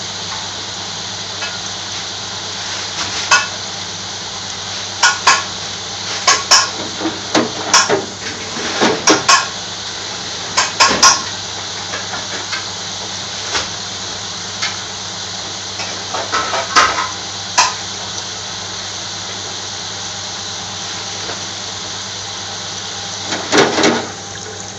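French fries sizzling in the oil of a commercial electric deep fryer over a steady low hum, with repeated sharp metallic clinks. Near the end the wire fry basket is lifted out of the oil with a short clatter.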